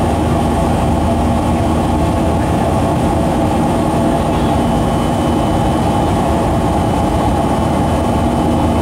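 Cabin noise of a Boeing 737-500 in flight after takeoff, heard from a seat beside the wing: the CFM56-3 turbofan engines' steady drone, with a few steady tones running above the low rumble.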